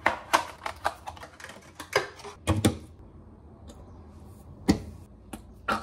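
Small cardboard box and cable packaging being opened and handled: a quick run of light clicks and taps for about three seconds, then a quieter stretch with a few single clicks near the end as the cable is plugged in.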